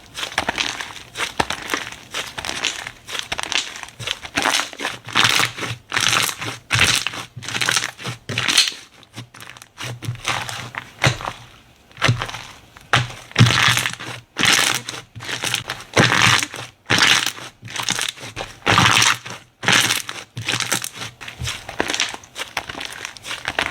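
Slime being squeezed, pressed and stretched by hand, giving a run of short crackling sounds in irregular squishes with brief pauses between them.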